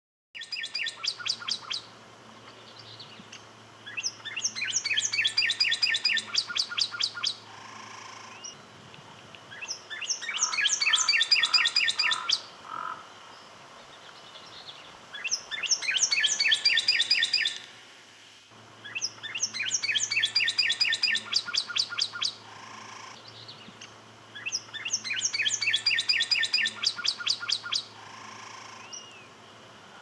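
Northern cardinal singing: repeated phrases of quick whistled notes in rapid series, each phrase lasting two to three seconds, with pauses of a few seconds between them.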